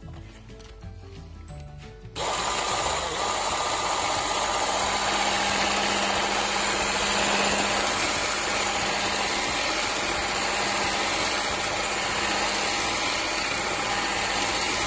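Electric hand mixer switched on about two seconds in, then running steadily with a hum as its whisk beater whips cream and condensed milk in a ceramic dish.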